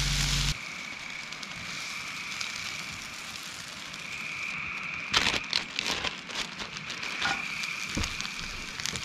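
Food sizzling in a camp-stove skillet cuts off suddenly about half a second in. A wood fire then crackles quietly under a steady high-pitched evening chorus. A spatula scrapes and clatters while serving food onto a plate around the middle, and a plastic bag crinkles near the end.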